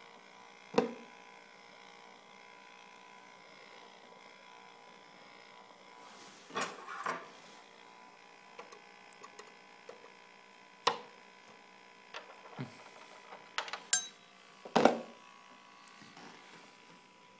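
Scattered sharp clicks and light knocks of a pry tool and a plastic LED lens against a TV's aluminium backlight strip and metal back panel, as the heat-loosened lens is levered off. The clicks come singly and in small clusters, the loudest about a second in and twice near the end, over a faint steady hum.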